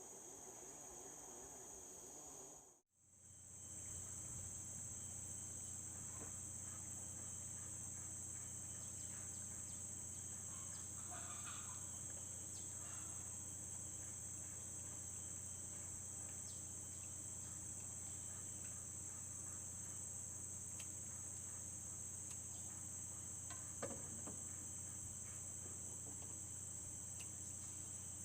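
A steady high-pitched chorus of insects, like crickets, trilling without a break. It cuts out briefly about three seconds in, then resumes with a low steady hum underneath.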